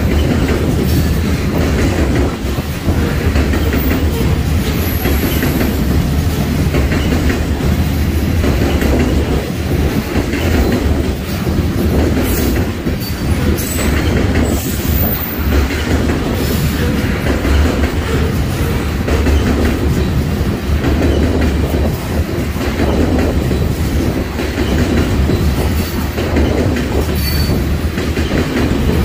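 Covered hopper cars of a grain train rolling past: a steady loud rumble of steel wheels on rail with scattered clicks over the joints, and a faint high wheel squeal a few times.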